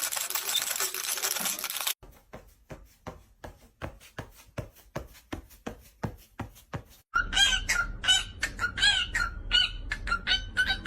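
Caique parrot calling with a string of short chirping squawks that bend up and down in pitch, starting about seven seconds in. Before that comes a run of sharp taps, about three a second, after a couple of seconds of steady noise.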